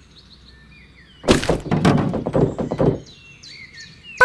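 Faint bird chirps, then, about a second in, a burst of clattering: many quick small knocks running together for about a second and a half.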